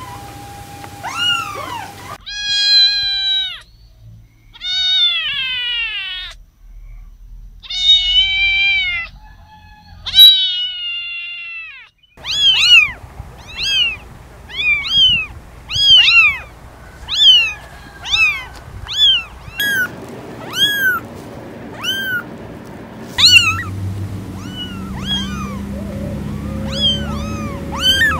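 Very young kittens meowing. A few long, drawn-out meows come first, then from about halfway through a quick run of short, high mews, one or two a second, from several kittens.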